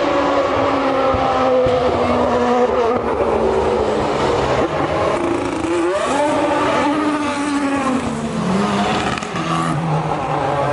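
Racing car engine at high revs, its note climbing about halfway through and then falling away near the end as the car passes.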